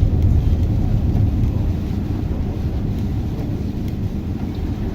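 Car driving on a snowy road: a steady low rumble of engine and tyres, heard from inside the car.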